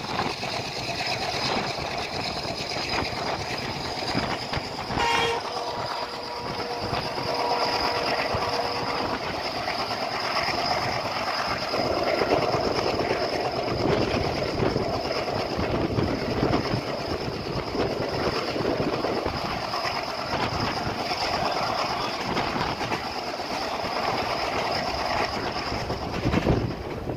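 Passenger train running at speed, heard from an open coach door: a steady rumble and rattle of wheels on the track. A diesel locomotive's horn sounds about five seconds in and holds for a few seconds.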